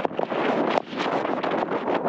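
Wind rushing over a skier's camera microphone, with the hiss of skis moving through powder snow; the sound dips briefly just under a second in.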